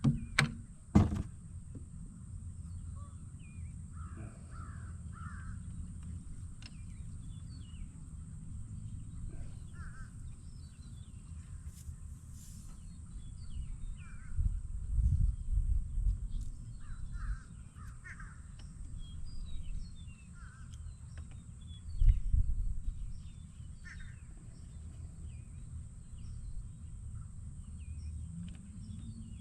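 Crows cawing now and then over a steady low rumble. There are two sharp knocks right at the start and two louder low swells of rumble, one about halfway through and one later on.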